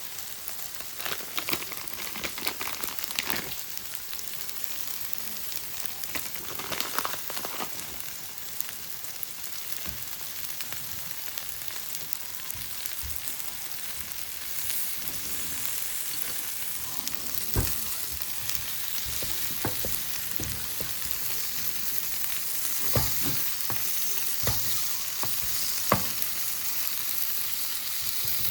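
Yakisoba noodles sizzling as they fry in a hot pan, with a steady hiss. Stirring sounds run through it, with a few sharp knocks, the loudest about two-thirds of the way in and near the end.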